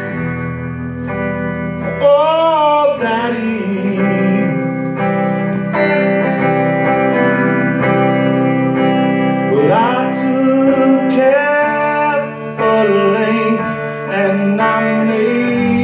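Live music: a man singing long, wavering held notes over a strummed guitar accompaniment.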